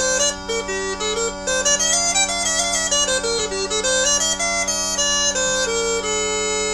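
Uilleann pipes playing a slip jig: a quick chanter melody over steady minor-tuned drones, settling onto one long held note about six seconds in.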